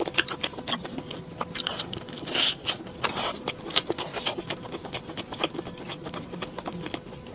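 A person eating close to the microphone: a run of quick small crunches and mouth clicks from chewing, with two longer, noisier bites about two and a half and three seconds in.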